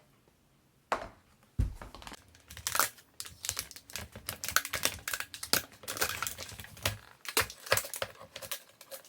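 Pringles cans being opened and handled: a quick, irregular run of crinkling, tearing and clicking as the foil seals are peeled off and the crisps are taken out, with one dull thump about a second and a half in.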